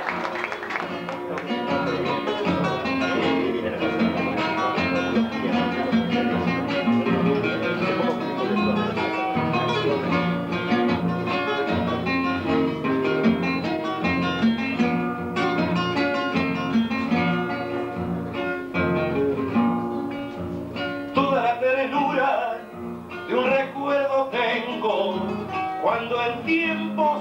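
Two acoustic guitars playing together, plucked chords and runs in an instrumental introduction before the singing begins. The playing thins out near the end, where a higher, wavering melody line stands out.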